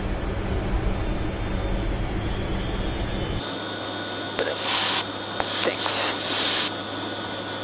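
Steady drone of the C-130J Super Hercules' turboprop engines and propellers heard inside the cockpit. About three and a half seconds in it cuts to a thinner intercom-style sound: a steady low hum, a few clicks and several short bursts of hiss.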